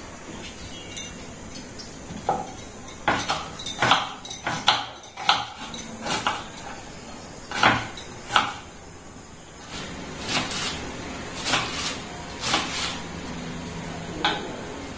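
Kitchen knife chopping onion and green chillies on a wooden cutting board: sharp knocks of the blade on the wood, irregular and bunched at first, then about one a second near the end.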